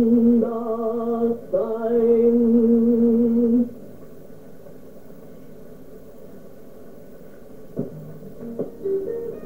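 A voice singing two long held notes with a slight waver, on an old film soundtrack, breaking off after a few seconds. A few soft instrument notes come in near the end.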